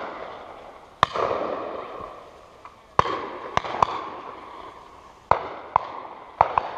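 Shotguns firing: four loud reports roughly two seconds apart, each with a long echoing tail, and fainter sharp cracks in between.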